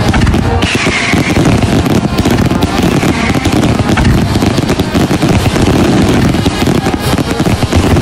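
Firecrackers going off in a loud, rapid, continuous crackle, with a band playing underneath.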